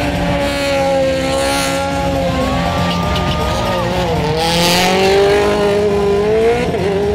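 Performance car engine revving hard during a drift demonstration, its pitch dipping about four seconds in and climbing again, with bursts of tyre squeal.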